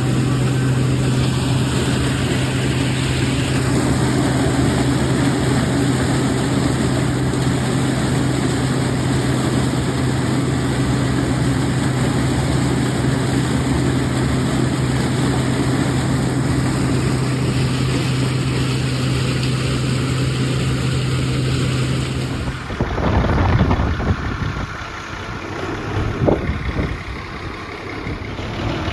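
Combine harvester running at a steady drone with a strong low hum. About 23 seconds in, the sound changes abruptly to uneven low rumbling with a sharp knock a few seconds later.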